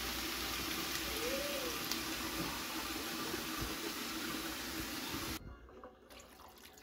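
A skillet of ground beef, vegetables and elbow macaroni sizzling steadily as water is poured in from a glass jar. The hiss cuts off abruptly about five seconds in, leaving only faint sound.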